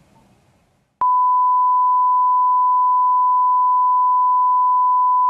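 Bars-and-tone test signal: a steady 1 kHz reference tone that switches on abruptly about a second in, after near silence.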